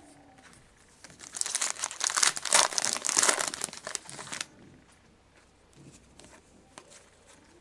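Foil wrapper of a trading card pack crinkling and tearing as it is opened, for about three seconds, followed by a few faint light ticks as the cards are handled.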